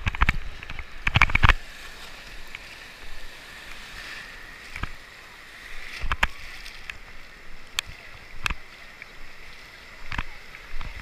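Sea water splashing and fizzing around a bodyboard in shallow surf, close at the water surface, with a loud splash about a second in and a few sharp knocks and slaps of water against the board later on.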